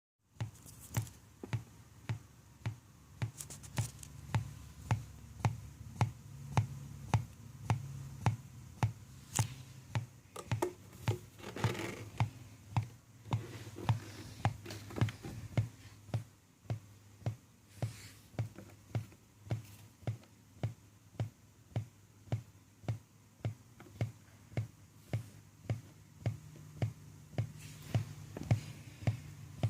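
Brookstone outdoor speaker putting out a pulsing white-noise burst about three times every two seconds over a faint steady hum while switched on, a fault the owner suspects comes from a faulty power cord.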